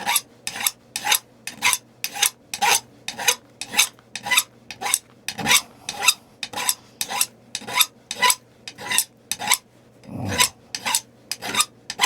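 Edge of a knapped stone point being abraded with an abrader, in quick rasping strokes about two or three a second, with a short break near the end: grinding the edge to prepare platforms for flaking.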